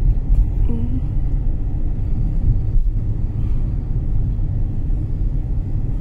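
Steady low rumble of road and engine noise from a moving car, heard from inside it.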